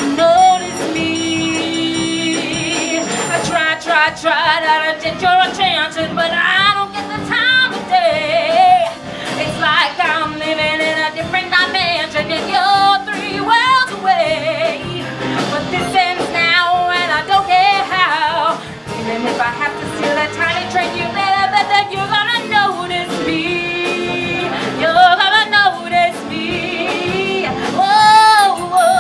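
A woman singing a show tune into a microphone, her held notes wavering with vibrato, over instrumental accompaniment.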